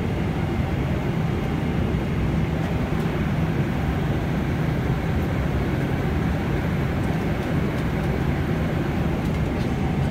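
Steady cabin noise of an airliner in flight: an even, low rumble of the engines and the air through the cabin, unchanging throughout.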